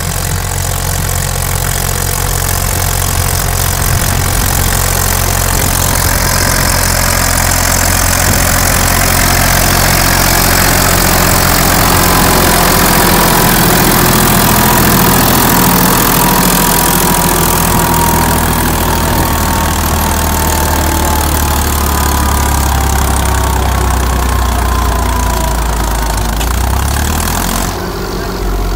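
Bolinder-Munktell BM 350 Boxer tractor's diesel engine running hard under load as it pulls a weighted sled, growing louder toward the middle. Over the second half a whine slowly falls in pitch. About a second before the end the engine note drops back as the tractor comes to a stop.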